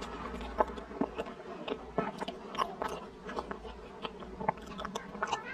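Close-miked wet chewing and mouth sounds of a person eating a soft taro mochi dessert of mashed taro, cream and mochi, with many irregular short clicks and smacks.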